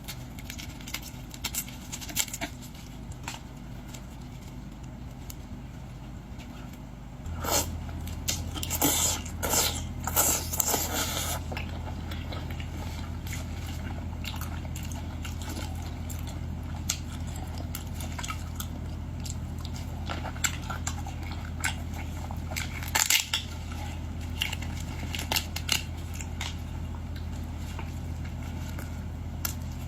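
Close-up eating sounds of boiled shellfish being cracked, peeled and chewed. Scattered sharp clicks, crackles and wet squishes come thickest about a third of the way in and again around two-thirds of the way. A steady low hum comes in about seven seconds in.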